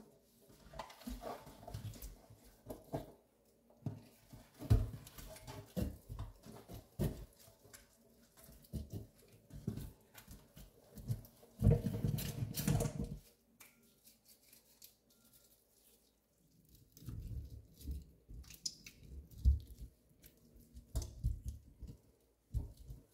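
Hands and a lemon half scrubbing cleaning paste over a stainless steel sink and chrome faucet: irregular rubbing and tapping strokes, with a louder stretch about twelve seconds in and a short pause soon after.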